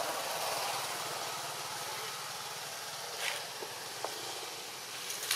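Steady outdoor background noise, with a short rustle about three seconds in and a faint click about a second later.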